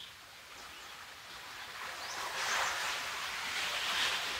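Soft rushing of wind and small waves on the shore, swelling in the second half.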